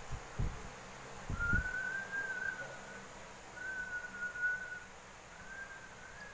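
A thin, whistle-like tone, wavering slightly in pitch, sounds three times for about a second each. A few soft low thumps come in the first second and a half.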